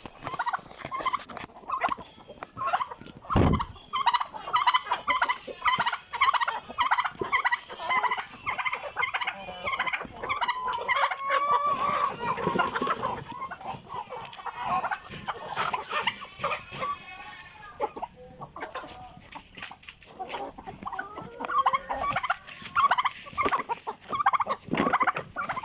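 A flock of chickens clucking and calling, many short calls overlapping throughout.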